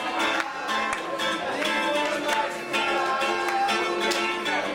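Live song: strummed acoustic guitar with a group of voices singing along.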